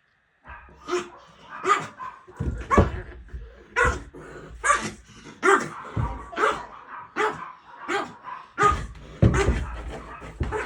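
Dog barking over and over, roughly one bark every three-quarters of a second, a dozen or so barks in a row.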